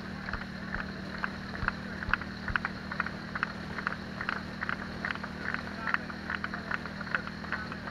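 Steady low engine hum, with many short, light ticks scattered irregularly over it.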